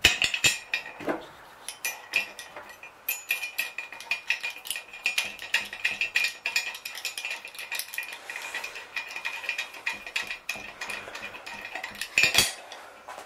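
Metal blocks and their fittings clinking and clicking against a steel masthead fitting as they are fitted to its tangs, the hollow steel tube ringing with a steady high note. There is a louder knock at the start and another about twelve seconds in.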